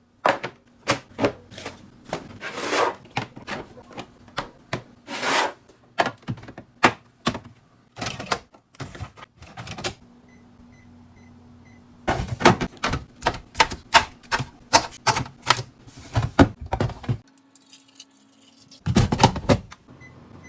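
Irregular clicks, taps and clunks of containers and packaged items being handled and set into a fridge while it is restocked. There are two quieter pauses, one about ten seconds in and one near the end.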